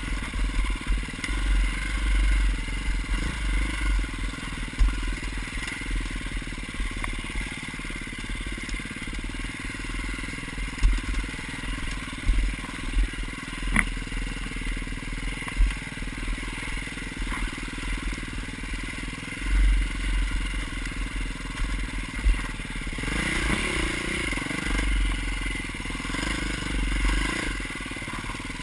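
KTM dirt bike engine running at trail speed, the revs rising and falling, with bursts of low rumble from bumps and wind on the bike-mounted camera microphone and a sharp knock about halfway through.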